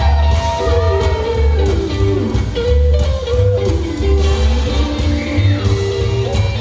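Show-tune music with a steady pulsing bass beat and sliding melodic lines.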